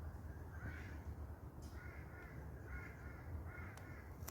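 A crow cawing about four times in a row, faint and in the background, over a low steady hum.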